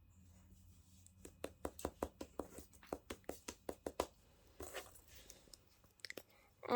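Fidget toy being clicked: a rapid run of small clicks, about six a second for nearly three seconds, then a faint rustle of handling.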